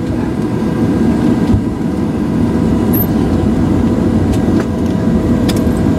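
Cabin noise inside a Boeing 737-700 on the ground after landing: a steady low rumble of the engines and airframe, with faint steady whining tones over it.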